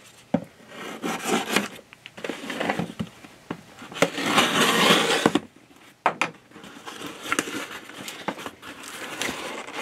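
A knife slitting the packing tape on a cardboard shipping box: scattered scrapes and taps on the cardboard, then a longer loud rip about four seconds in as the tape is cut through. After that the flaps are pulled open and foam packing peanuts rustle under the hands.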